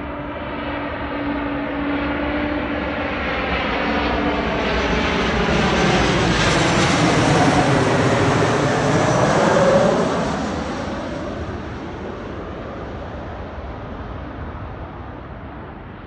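Embraer E195 airliner's twin turbofan jet engines passing by as it comes in to land. The engine whine swells to its loudest about ten seconds in, then falls in pitch and fades as the plane goes past.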